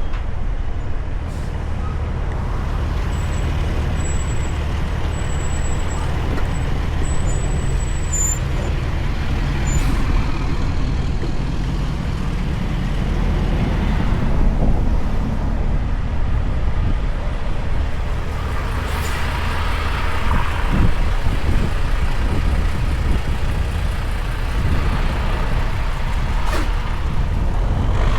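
Heavy-haul semi truck's diesel engine running steadily under a heavy load, with road and tyre noise.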